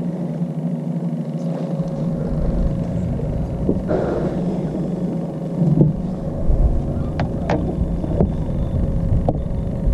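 A boat motor running steadily, with a low rumble underneath and a few sharp clicks in the second half.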